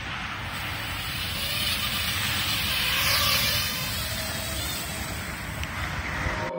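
Racing quadcopter propellers whining as the quad takes off and climbs, over wind buffeting the microphone. The sound swells to its loudest about halfway through.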